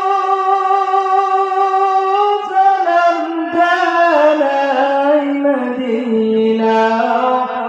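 A man singing an unaccompanied Bengali Islamic gojol through a microphone. He holds one long note, and about two and a half seconds in it breaks into an ornamented run of notes that slides downward in pitch.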